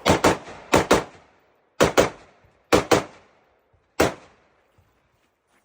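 Rifle shots fired in quick double taps: four pairs, each pair about a fifth of a second apart, then a single shot, each with a short echo.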